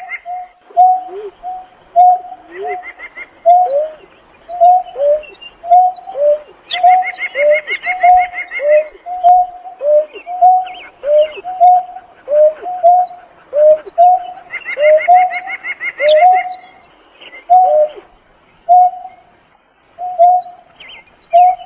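Greater painted-snipe calling: a steady series of low hoots, about two a second, each dropping in pitch at the end, with a short lull near the end. A higher trill joins in a few times.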